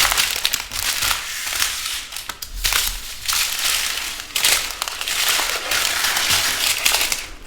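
Small plastic bags of diamond painting drills crinkling and rustling as they are handled, with many small crackles throughout.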